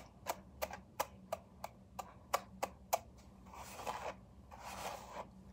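Hairbrush being pulled through long, knotted hair: a quick, even run of sharp clicks, about three a second, then from about three and a half seconds in, longer swishing strokes.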